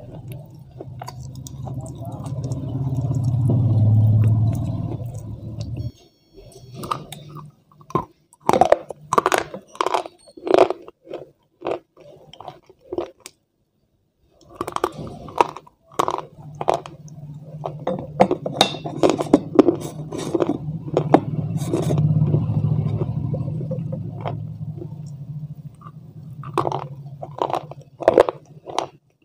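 Close-miked biting and chewing of crumbly white chalk-like sticks: quick runs of crisp crunches, with a short pause about halfway. Behind them a low rumble swells and fades twice and is loudest about four seconds in.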